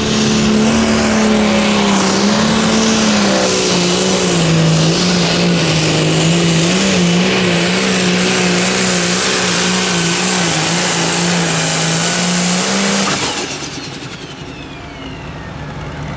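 Competition pulling tractor's engine running flat out under load from the weight-transfer sled, its pitch wavering up and down. The engine note drops away about thirteen seconds in.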